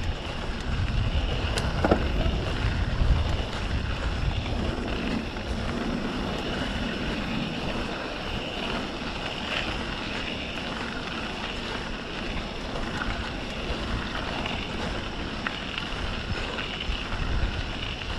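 Wind buffeting the microphone and the rolling rumble of a mountain bike on a dirt trail, heaviest in the first few seconds, with a sharp knock about two seconds in.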